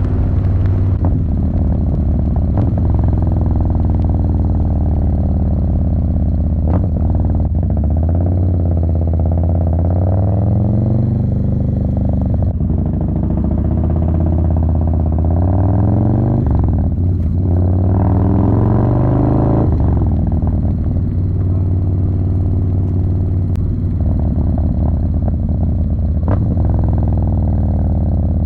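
Harley-Davidson Low Rider S (FXDLS) with its 110 cubic inch V-twin running under way. The engine note climbs in pitch several times as the bike accelerates up through the gears, then settles between pulls.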